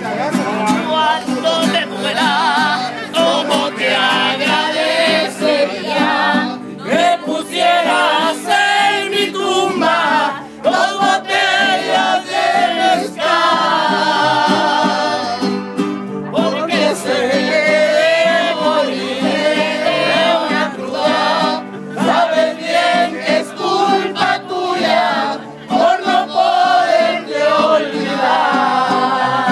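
Live mariachi-style band playing, with violins and guitars over a steady bass, and singing throughout.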